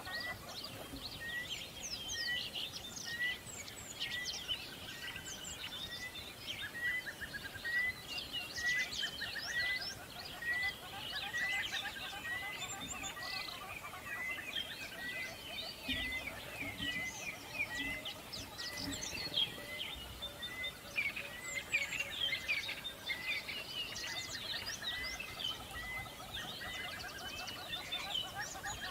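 Many birds chirping and calling together in a dense chorus. Through it, one short rising call repeats steadily, a little under twice a second.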